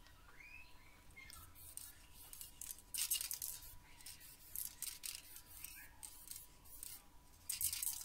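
Aerosol spray can of silver alloy wheel paint hissing in short repeated bursts, the loudest about three seconds in and near the end, as the finish coat goes onto metal weight plates.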